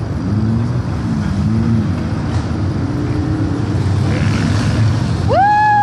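Lifted Jeep Cherokee XJ's engine running and revving up and down as it climbs the dirt mounds of a tough-truck course. About five seconds in, a loud high-pitched tone rises quickly and then holds steady over the engine.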